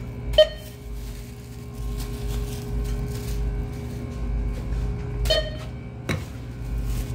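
Two short ringing dings, one just after the start and another about five seconds in, each a sharp click followed by a brief ring, over a steady low hum. A dull knock follows about a second after the second ding.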